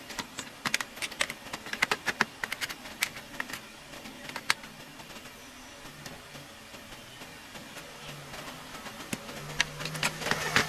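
Scattered sharp clicks and light knocks of an induction cooker's casing and parts being handled and fitted back together during reassembly. They come thick and fast over the first few seconds, thin out, then bunch up again near the end.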